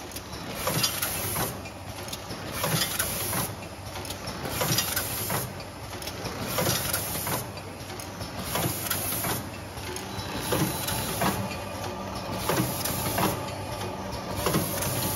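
Rotary pouch packing machine running: mechanical clacks and knocks repeating in a regular cycle about every two seconds over a steady machine hum.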